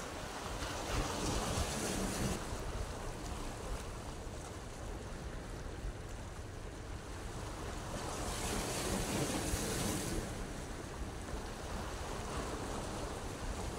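Sea waves washing against rocks, the surf swelling twice, about a second in and again around eight seconds in, with wind rumbling on the microphone throughout.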